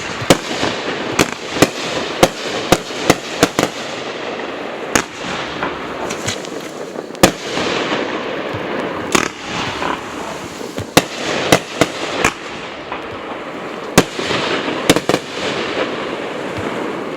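A 25-shot XL fireworks aerial cake (Unicorn Puke) firing its shots. Sharp bangs come at irregular intervals, about one or two a second, over a continuous hiss.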